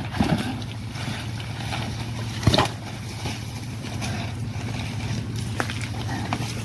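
Komodo dragons feeding on a wild boar carcass in mud: scattered wet tearing and crunching snaps, the loudest about two and a half seconds in, over a steady low hum.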